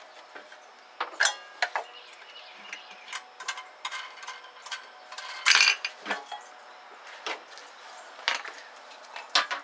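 Metal air cleaner being taken off a carburetor by hand: scattered clinks, taps and knocks of metal parts, the loudest about a second in and about halfway through.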